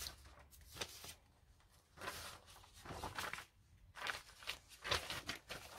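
Faint rustling and handling of paper, coming in several short spells with quiet gaps between, as papers or pages are shuffled through in search of a picture.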